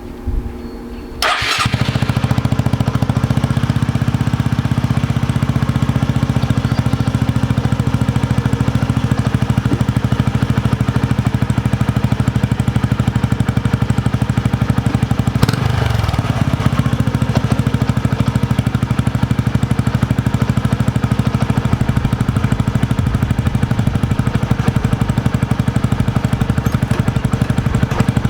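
Honda CT125 Hunter Cub's 125 cc single-cylinder four-stroke engine starting about a second in, then idling steadily, with a brief change in its note about halfway through.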